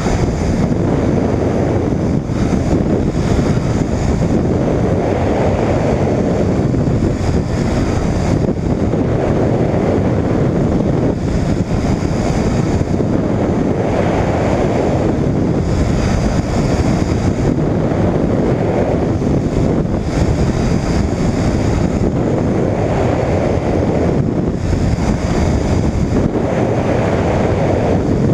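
Wind rushing over a wing-mounted camera on a microlight trike in flight, over the steady drone of the trike's engine and pusher propeller. The rush swells and eases every few seconds.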